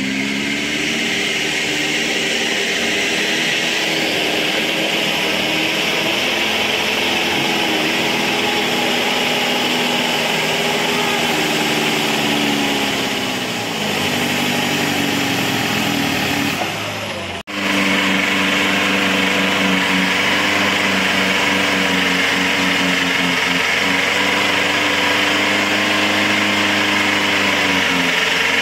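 Off-road jeep engine running hard under load in low gear as it crawls through mud, its pitch sagging and rising again several times. The sound breaks off for an instant a little past halfway.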